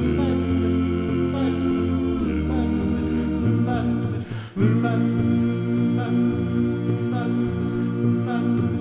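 Male a cappella gospel group singing sustained, wordless chords in close harmony, with a brief break about four and a half seconds in.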